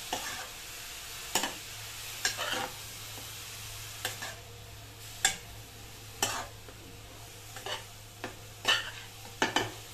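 A steel spoon stirs grated carrots frying in ghee in a metal pan, over a soft, steady sizzle. About ten sharp scrapes and taps of the spoon against the pan come at irregular intervals. The carrots are being fried on a low flame until their raw smell is gone.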